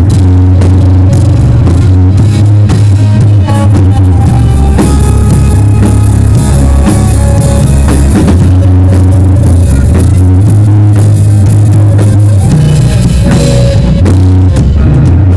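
Rock band playing together live: drum kit, electric bass, and acoustic and electric guitars, with held low bass notes under steady drumming. Very loud throughout.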